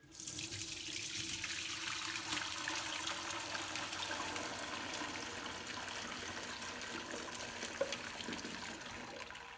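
Hot bone broth pouring from a slow-cooker crock through a mesh strainer into a pot, a steady stream of liquid that starts suddenly and eases slightly near the end.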